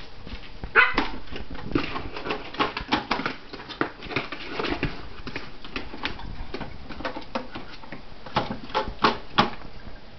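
Small terriers, a Yorkshire terrier and a Jack Russell, playing: a run of short, sharp barks and yips, with a loud one about a second in and a quick cluster of louder ones near the end.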